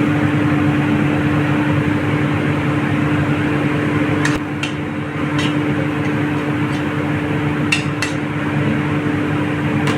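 Steady machine hum with a constant low tone, like a motor or fan running, and a few short light clicks and taps in the middle.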